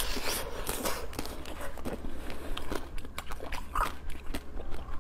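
Close-miked eating sounds: biting into and chewing a shell-coated dessert, with a run of irregular wet clicks and crackles.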